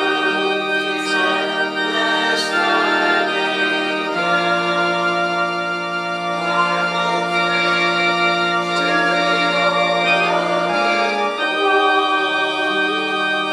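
Organ playing slow, sustained hymn chords that change every few seconds.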